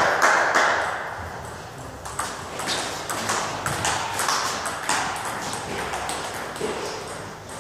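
Table tennis ball being hit back and forth, with sharp clicks of the ball off the bats and bounces on the Donic table in quick succession. A louder, noisy burst comes at the very start.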